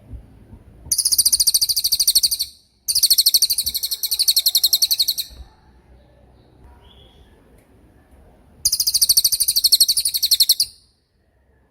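Cililin songbird singing its 'tembakan' song: three very fast, high-pitched rapid-fire trills of evenly repeated notes, each lasting about two seconds, with short pauses between them.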